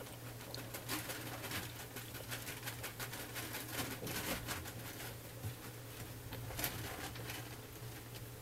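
Newborn Cavalier King Charles Spaniel puppies nursing: a run of small wet suckling clicks, mixed with soft cooing vocal noises from the puppies.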